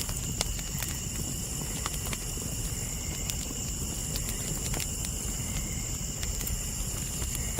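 Campfire crackling, with sharp irregular pops over a low rumble, while night insects trill steadily in high, unbroken tones.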